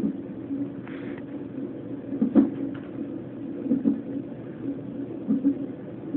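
Fetal heart monitor's Doppler speaker during a non-stress test at 32 weeks: the rapid, whooshing pulse of the baby's heartbeat, cut across by a sharp thump about every one and a half seconds, the baby's hiccups.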